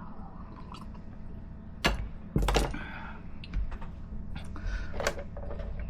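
A few sharp knocks and clicks of small objects handled and set down on a workbench, over a steady low hum.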